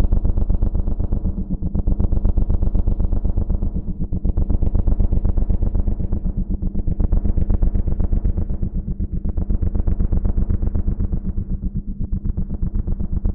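A low, steady droning tone with many overtones and a fast pulsing flutter, swelling and easing back every two to three seconds.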